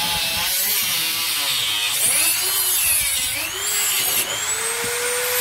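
Handheld corded rotary tool with a cut-off disc grinding through a metal bracket under the car, throwing sparks: a shrill, continuous grinding whose motor whine dips and recovers as the disc bites into the steel.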